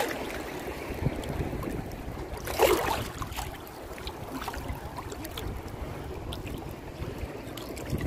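Small ocean waves lapping and slapping against a phone held at the water's surface, over a steady low rumble, with one louder splash a little over two and a half seconds in and small droplet clicks.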